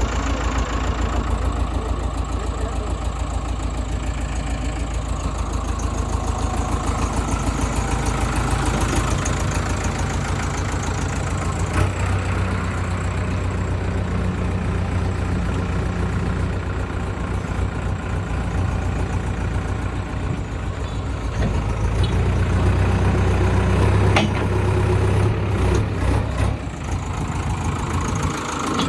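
Heavy diesel engine running steadily, louder for a few seconds late on, with a couple of short sharp knocks.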